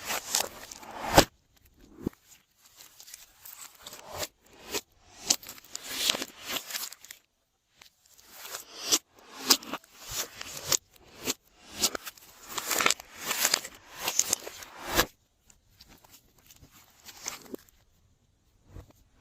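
Glossy slime being squished and stretched by hand: irregular runs of sticky crackles and pops with short pauses between them, going quieter near the end.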